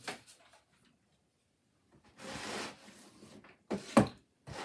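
Cardboard shipping box being picked up and handled: a short scraping rustle about two seconds in, then a few sharp knocks near the end as it bumps against a surface.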